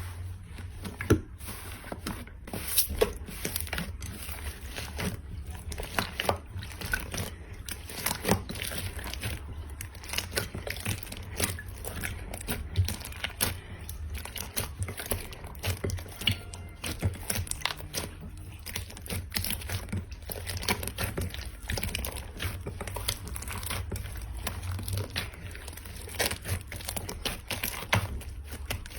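Slime being squeezed and poked by hand, a dense, irregular run of small crackles and clicks.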